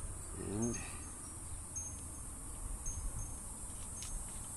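A steady, high-pitched chorus of insects trilling, over a low background rumble, with a faint click or two about four seconds in.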